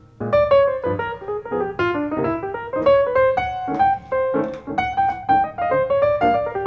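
Piano music: a brisk melody of quick, separate notes, several to the second, with no singing.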